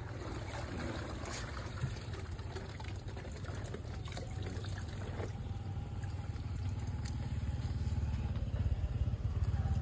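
Scissors snipping food inside a plastic bag, a few separate sharp snips, over a steady low rumble that grows louder toward the end.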